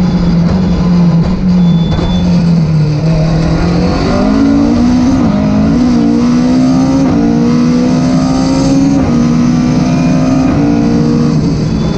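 Rally car engine heard from inside the cabin at speed: revs steady at first, climbing about four seconds in and held high with a few brief dips, dropping back near the end, over constant road and wind noise.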